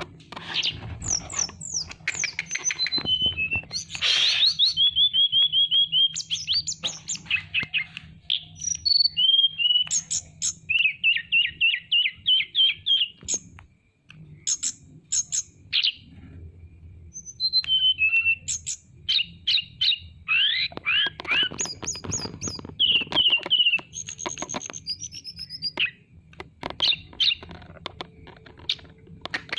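Tledekan gunung songbird singing a long, varied song of quick high chirps and rapid trills, in phrases broken by brief pauses. A faint steady low hum runs underneath.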